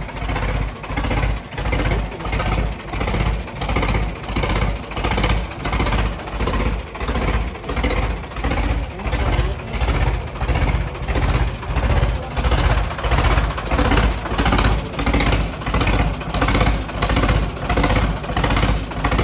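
Sonalika 35 tractor's diesel engine running hard while a rear tyre spins in place on concrete, scrubbing rubber off the tread in a deliberate burnout to wear the tyre down. The noise swells and fades about once a second.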